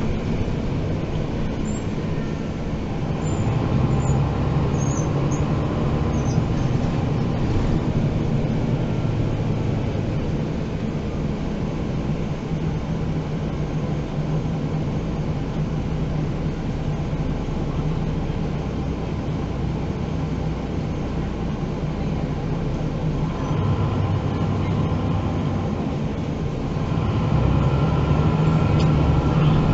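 MAN NG 313 articulated bus's diesel engine and drivetrain heard from inside the passenger cabin while riding, a steady drone over road and tyre noise. From about three-quarters of the way in, a higher whine comes in and the engine gets louder as the bus pulls harder.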